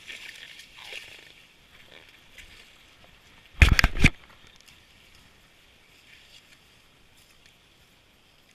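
Faint rustling of clothing and handling, then one loud scraping thump made of a few quick strokes, lasting about half a second, a little over three and a half seconds in.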